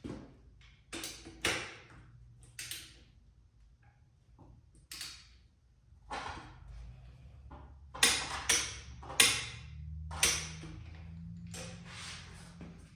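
A series of sharp metallic clicks and knocks from hand tools at work on the motorcycle's front-end bolts, irregularly spaced and loudest in a cluster around the middle, with a low steady hum coming in partway through.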